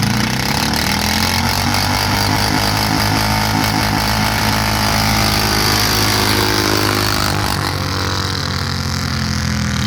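Racing farm tractor engines running hard and steady, their pitch drifting slightly and easing down in the second half.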